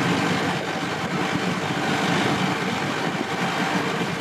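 Steady running noise of a slow-moving vehicle heard from on board: engine and rolling noise with a low rumble, even throughout.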